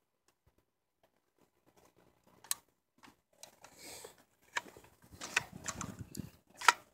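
Scattered sharp clicks and knocks with some rustling handling noise, the loudest click near the end.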